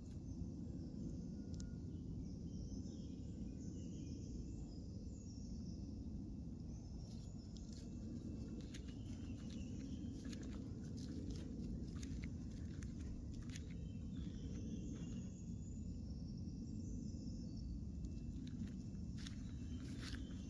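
Footsteps rustling and crackling through dry fallen leaves and grass, a run of short crisp ticks beginning about seven seconds in, over a steady low outdoor rumble.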